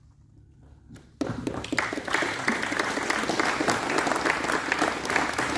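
Audience applauding. The clapping starts suddenly about a second in, after a brief hush, and keeps going.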